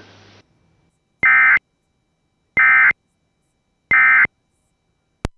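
Emergency Alert System end-of-message tones: three short, identical bursts of digital data tones, each about a third of a second long and about a second and a third apart, signalling the end of the alert. A brief click comes near the end.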